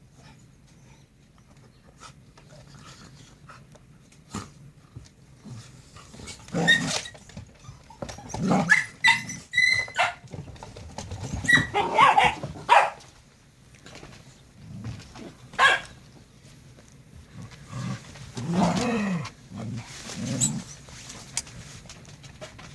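Jindo dogs play-fighting, barking and growling in irregular bursts. The loudest flurry comes in the middle, with a quieter one near the end.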